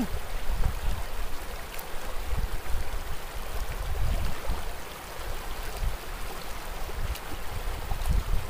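Shallow rocky river flowing and rippling over stones in a steady rush, with a low, uneven rumble underneath.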